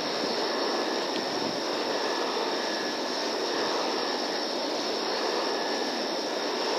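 Steady rushing noise with a faint, thin high whine running through it.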